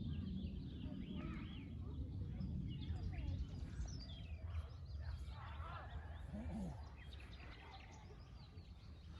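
Several songbirds chirping and trilling in a chorus of many short calls, over a low rumble that eases after about seven seconds.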